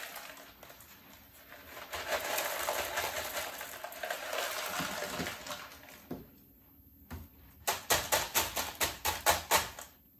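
Clay hydroponic pebbles trickling and rustling as they are poured into a plastic plant pot, then a quick run of sharp clicking and clattering of the pebbles near the end as they are handled and packed down.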